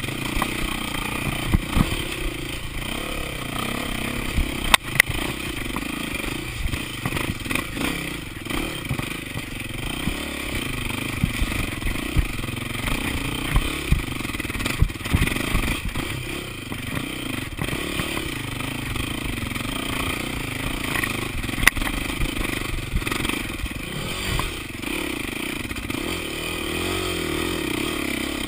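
KTM enduro dirt bike's engine running steadily as it is ridden over a rough dirt trail, with constant rattling and clatter from the bike. There are two sharp knocks, about five seconds in and again near twenty-two seconds.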